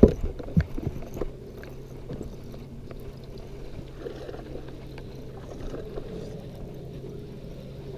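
Fishing from a boat with a bass hooked and being reeled in on a baitcasting reel: a few sharp knocks in the first second or so, then a steady low hum.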